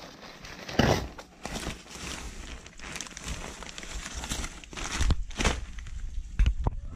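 Brown paper parcel wrapping being torn open and crumpled by hand, then the plastic bag holding a pair of coil springs crinkling as it is handled. Irregular rustles, with one louder rip about a second in.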